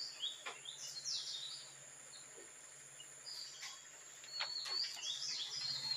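Small birds chirping in short, high, downward-sliding calls, a few times in the pause. A few light clicks and rustles come from sheets of paper being handled.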